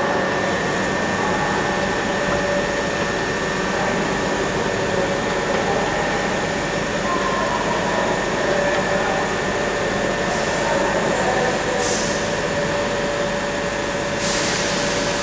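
Southern Class 377 Electrostar electric train pulling away, mixed with the steady electrical hum and whine of trains standing in the station. Two brief bursts of hiss come near the end.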